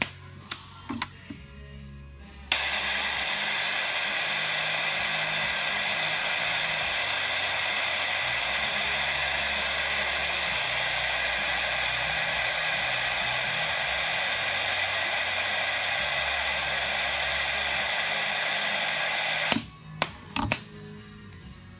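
Transfer blocking machine running through its cycle with a loud, steady hiss of air for about 17 seconds, starting and stopping abruptly, with a few sharp clicks just before and after. Rock music from a radio plays faintly underneath.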